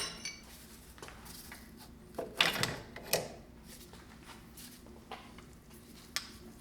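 Several irregular metal-on-metal knocks, the loudest about two and a half and three seconds in: a brass punch being struck and worked against a piston and connecting rod to drive it out of the bore of a Mini 1275 A+ engine block.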